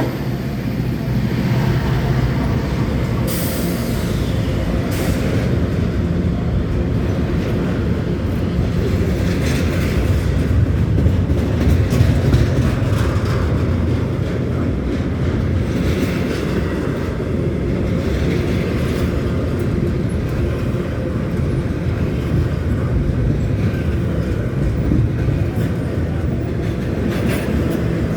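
Freight train rolling past at close range: a steady, loud rumble of wheels on rail, with a few sharper clanks from the cars.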